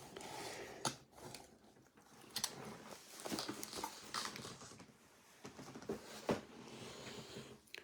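Faint handling noises: scattered clicks, light knocks and rustling as small objects such as card boxes and a phone charger are moved about on a table.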